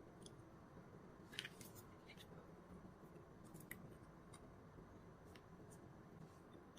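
Near silence with a scattering of faint, sharp little clicks and ticks from hand soldering work on the wires of a battery pack's protection board, the loudest about a second and a half in.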